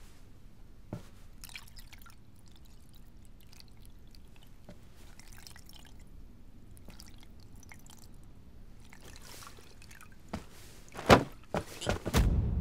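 Faint scattered ticks over a low steady background, then near the end a quick run of sharp knocks and a heavy thump.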